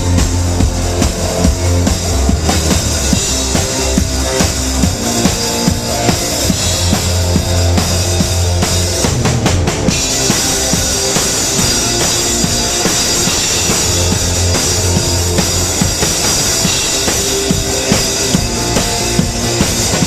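Live rock band playing through a stage PA, with the drum kit's bass drum and snare prominent over a heavy bass line. About halfway through the sound gets brighter in the top end.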